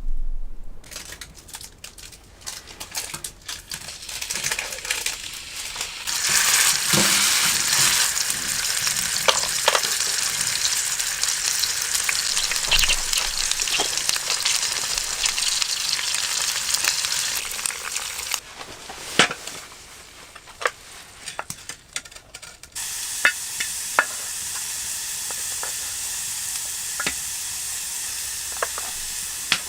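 Food frying: a steady sizzle with scattered sharp pops and spits. The sizzle gets louder about six seconds in, dips around eighteen seconds, and settles to an even level at about twenty-three seconds.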